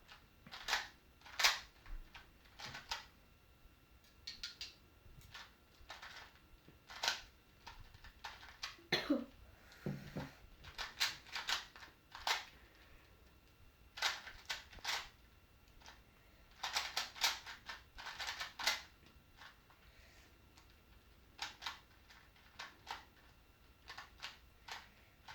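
Plastic Rubik's cube layers being turned fast by hand in a speedsolve: sharp clicks and clacks in irregular runs, with short pauses between them.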